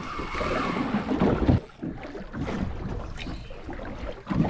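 Wind buffeting the microphone and water slapping against the hull of a drifting fishing boat, with a low thump a little over a second in.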